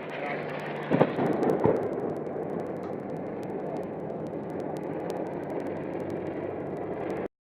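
Two heavy blasts, about a second in and again just under two seconds in, followed by a steady noisy rumble that cuts off suddenly near the end.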